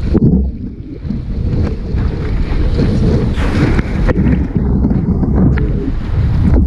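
Wind buffeting the microphone with a loud, uneven low rumble, over the wash of sea water and surf; a brighter hiss, like breaking water, swells about three and a half seconds in.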